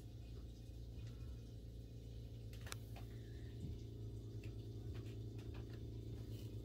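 Faint handling of plastic trading-card binder sleeves: a few soft clicks and rustles over a steady low hum.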